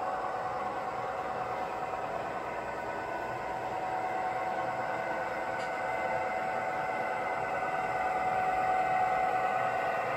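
Santa Fe F45 model locomotive running on the layout track: a steady whir of its electric motor and wheels rolling on the rails, slowly getting louder as the train approaches.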